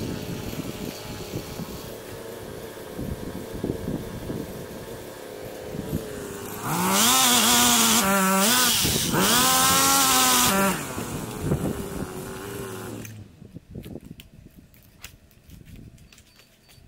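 Pole chainsaw running and cutting into a branch: twice, about seven and nine seconds in, it goes loud and its pitch sags under the load and recovers. It then drops back to a lower steady note and stops about thirteen seconds in, leaving only a few faint clicks.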